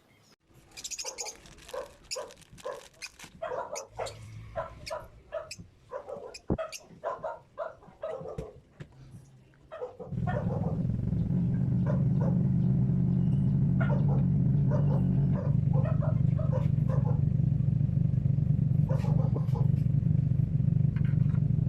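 A dog barking repeatedly, a couple of barks a second. About halfway through, a loud, steady low mechanical hum starts and keeps going.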